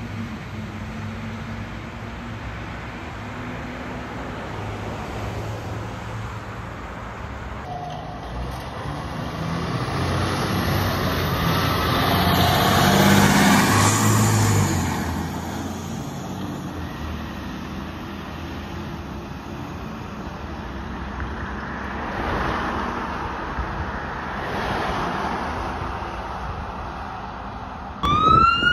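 Fire engine driving past close by: engine and tyre noise swell to a peak about halfway through and then fade, over steady road traffic. Right at the end a siren wail cuts in suddenly, rising in pitch.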